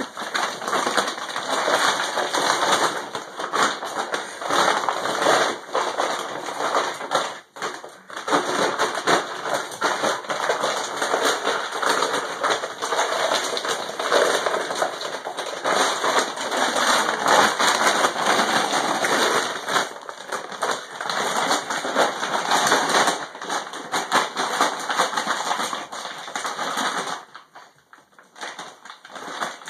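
Empty plastic dog food bag crinkling and rustling without a break as a puppy pushes into it and tugs at it, with dense crackles that ease off briefly near the end.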